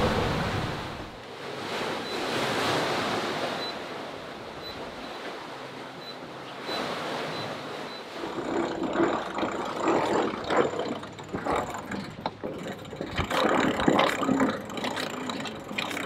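Wind and rushing sea water around a sailing catamaran under way, a steady hiss. From about halfway, irregular knocks and clicks join in.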